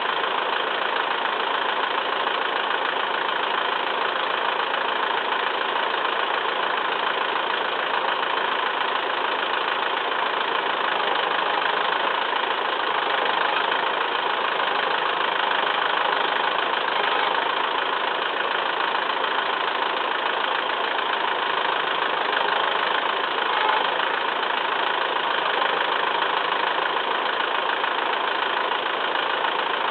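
Massey Ferguson 2635 tractor's diesel engine running steadily.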